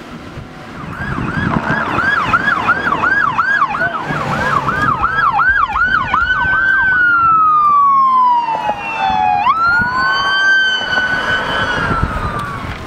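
Police car siren in a fast yelp, about two and a half rises and falls a second. It then glides down, jumps sharply back up and holds a long wail, over the low running of the vehicle.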